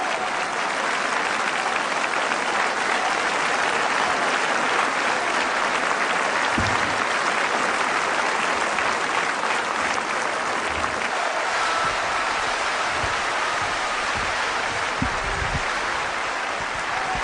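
Large concert audience applauding steadily, with a few dull low thumps in the second half.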